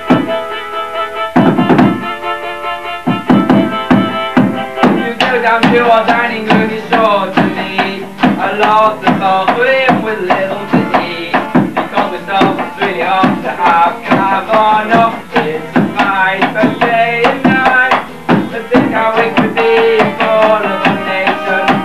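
Band music with a drum beat and a wavering melody line that comes in about five seconds in.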